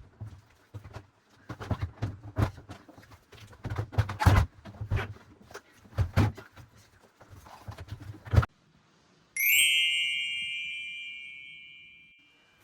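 Irregular knocks and thumps of things being handled and set down. About nine seconds in, a single bright chime rings and fades out over about three seconds.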